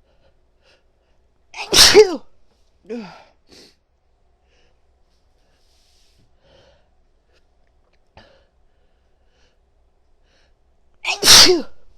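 A woman sneezing twice, about nine seconds apart, each a sudden loud burst ending in a falling voiced "choo". A short breathy vocal sound follows each sneeze.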